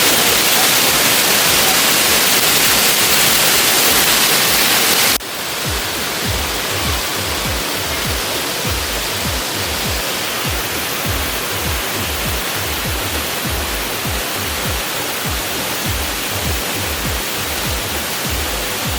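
Loud, steady rush of a waterfall, cut off suddenly about five seconds in. After that comes background music with a steady low beat over a quieter rush of water.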